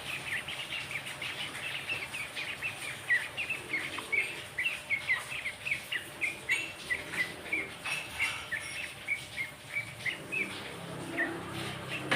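A songbird of the kind called kerocokan or jogjog calling vigorously in a fast run of short, sharp, high chirps, about four or five a second, the run thinning near the end.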